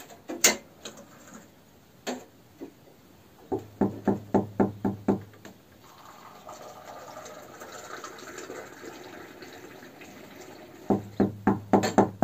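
Tea poured from a teapot into a glass: a steady pour lasting about five seconds, set between runs of quick knocks.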